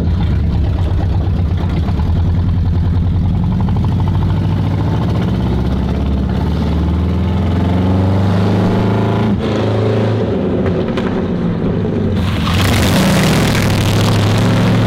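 Race-built Ford Pinto's engine running as the car is driven, its pitch rising and falling with the throttle. Near the end a louder rushing sound comes in for about two seconds as it pulls harder.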